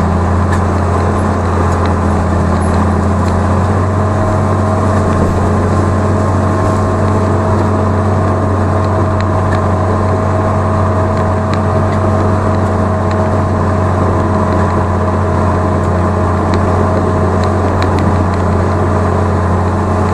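Tractor engine running at a steady speed: a constant deep drone with a steady whine above it, unchanging throughout.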